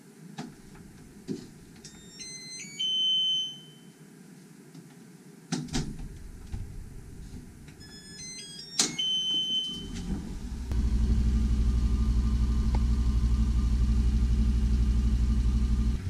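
Wall-mounted mini washing machine: a few clicks and knocks at its door and controls, and two short beep melodies from its control panel, each ending on a held tone. About eleven seconds in, the machine starts running with a steady hum as its wash cycle begins.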